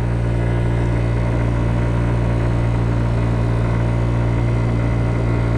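Kymco Agility 50 scooter's 50cc engine running steadily under load on a steep uphill climb, with its CVT holding the revs while road speed sags from about 25 toward 20 mph.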